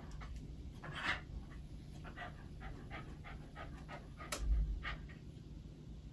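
Shiba Inu panting in quick, short breaths, several a second, with a dull knock about four and a half seconds in.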